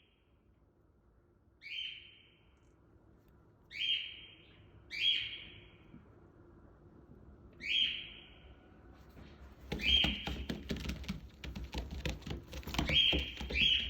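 Captive birds calling: seven short, sharp calls at irregular intervals. From about ten seconds in, a busy clatter of rustling and light knocks joins them.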